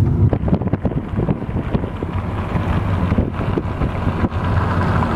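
Steady low rumble of road and engine noise inside a moving car's cabin, with several short knocks in the first two seconds.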